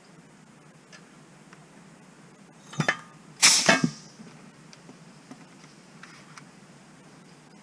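Two short, sharp metallic clanks less than a second apart, the second the louder: a benchtop riveting machine setting a rivet in the aluminium skin of an RV-14A vertical stabilizer.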